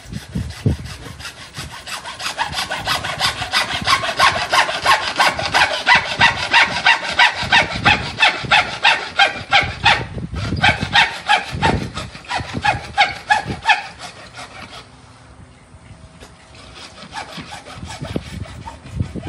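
Hand saw cutting through white PVC drain pipe in steady back-and-forth strokes, about three a second, with a short break about ten seconds in. The strokes fade after about fourteen seconds as the cut finishes.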